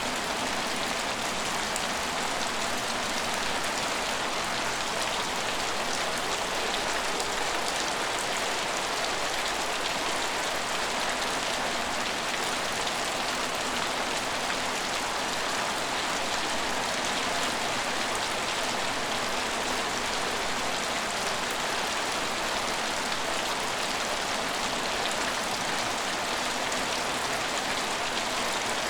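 Steady rain falling on hard surfaces, an even hiss of many drops with no let-up.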